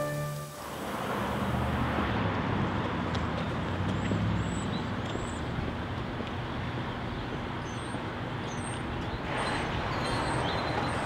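Steady road-traffic noise from a nearby street, with a few faint high chirps, growing a little louder about nine seconds in.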